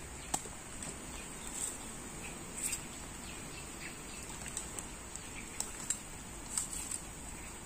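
Steady high-pitched drone of insects in tropical undergrowth, with short bird chirps and a few sharp clicks or taps.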